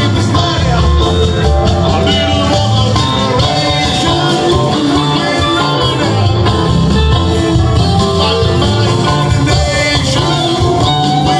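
Live rock band playing a guitar-led song with singing, heard loud and steady through the PA from within the audience.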